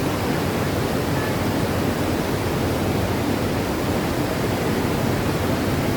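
Waterfall roaring, a steady, even rush of falling water.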